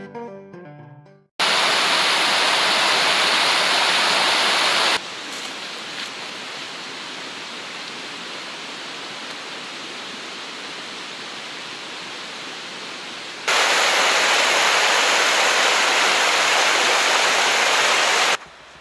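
Rushing mountain stream tumbling over rocks, in hard-cut segments: loud for about three seconds, a quieter steady rush for about eight, then loud again for about five. A plucked guitar tune fades out just before the water starts.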